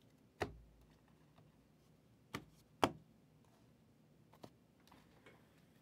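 About four sharp plastic clicks and taps, two of them close together near the middle and the second of those the loudest: trading cards in hard plastic holders being set down and stacked on a table.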